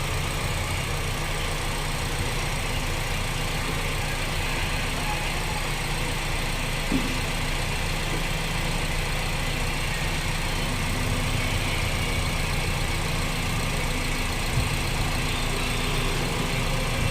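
Honda Freed's 1.5-litre four-cylinder petrol engine idling steadily, with two light clicks, one about seven seconds in and one near the end.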